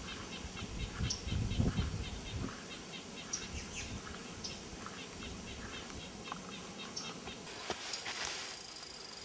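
A small bird chirping a steady series of short, high notes, about five a second. Low rumbling noise fills the first two seconds or so, and there is a brief scrape near the end.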